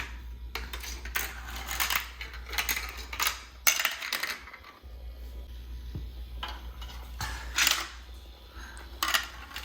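Irregular clicks and clacks of hard plastic marble-run parts and marbles knocking together, about a dozen sharp taps spread unevenly.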